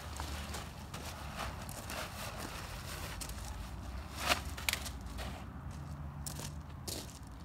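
Horse's hooves striking the ground in irregular footfalls, the sharpest about four seconds in, over a steady low rumble.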